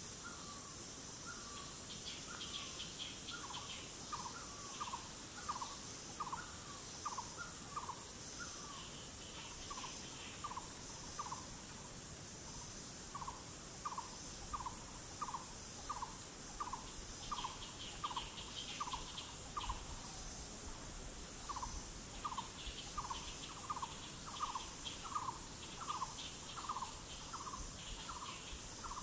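Forest insects keep up a steady high-pitched drone while a bird repeats a short falling note about twice a second in long runs, pausing briefly twice. Bursts of higher, faster chattering calls come and go.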